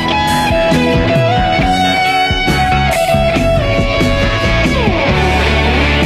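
Background rock music led by guitar, with no vocals; a held note slides down in pitch a little before the end.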